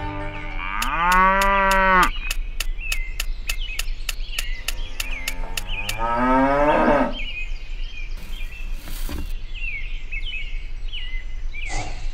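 Cattle mooing twice: a long call about half a second in and a shorter one with a falling pitch around six seconds in. Between them runs a fast, even ticking of about four ticks a second, and small chirps follow the second moo.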